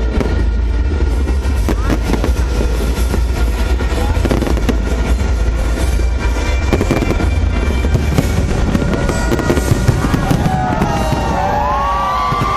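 Fireworks display going off: a dense, continuous run of bangs and crackling over a low rumble.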